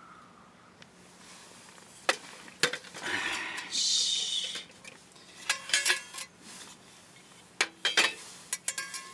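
Camp cookware and utensils being handled: scattered sharp metallic clinks and knocks with brief ringing, in small clusters, and a short rustling noise about three seconds in.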